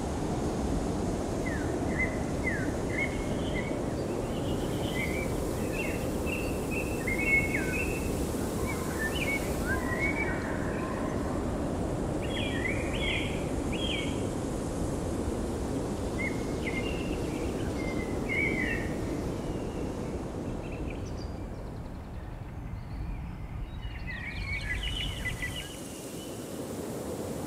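Birds chirping and calling again and again in short, quick notes, over a steady low rumble of outdoor background noise.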